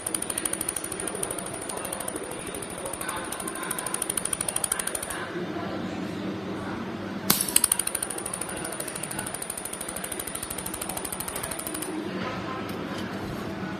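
Pulsed mould laser welding machine firing: a fast, even ticking of laser pulses with a steady high whine. It stops about 5 s in, comes back after a sharp click near the middle, and stops again near the end.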